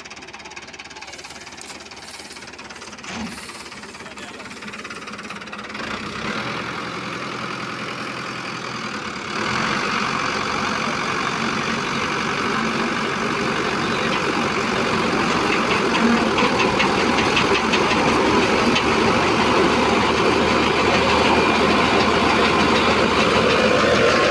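Tractor engine running a wheat thresher, a dense steady mechanical din that steps up about six seconds in and again sharply about nine seconds in, then keeps growing louder.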